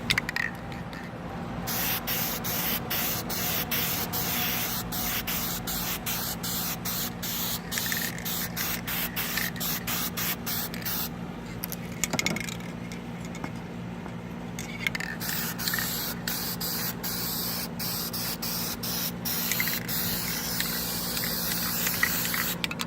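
Spray paint hissing on engine parts in many short bursts with brief breaks, and a longer pause near the middle. A steady low hum runs underneath.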